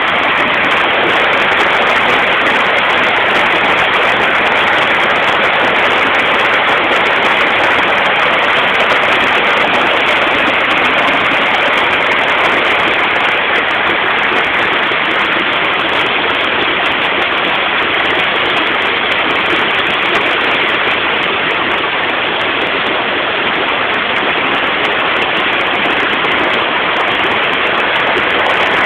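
Muddy floodwater from heavy rain rushing and churning down a channel: a loud, steady rush of water.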